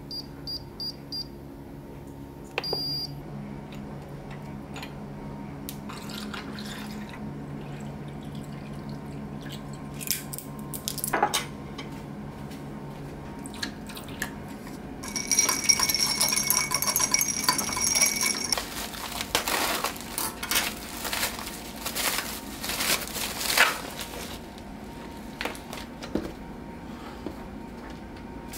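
A few short beeps from an air fryer's touch panel being set, over a low steady hum. Later, liquid pours into a glass for a few seconds, followed by a run of sharp clinks of a metal stirrer against ice and glass as the drink is mixed.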